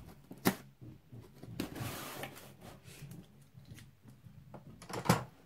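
Cardboard box being opened with scissors: a sharp click about half a second in, a rasping scrape around two seconds in, and a loud cardboard knock near the end.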